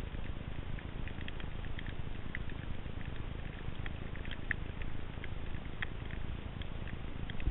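Underwater ambience picked up by a submerged camera in shallow sea: a steady low rumble of moving water, with scattered faint crackling clicks at irregular moments.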